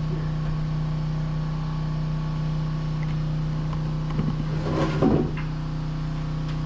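Steady mechanical drone of a running motor or engine, even in level and pitch, with a brief louder clatter about four to five seconds in.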